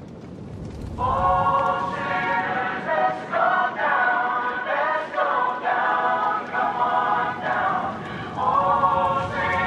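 Background music: an a cappella choir sings held notes in close harmony without clear words, coming in about a second in.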